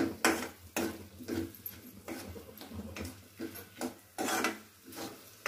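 Metal ladle scraping and clinking against a metal kadhai, stirring fried potato cubes and peanuts in irregular strokes.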